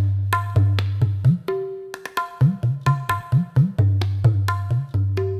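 Percussive background music: a drum rhythm of sharp struck notes with a ringing tone, over deep drum notes that slide upward in pitch.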